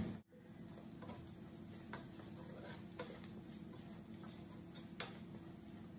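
Faint, sparse taps of a wooden spatula against a steel pan while onions and spices are stirred, roughly one a second, over a low steady hum.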